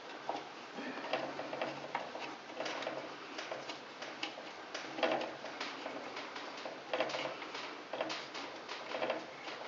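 Irregular small clicks, taps and scrapes of hands working a nut onto a furnace humidifier's new float valve.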